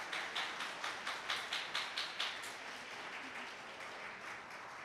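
Audience applauding: many hands clapping together, strongest in the first couple of seconds, then thinning and fading.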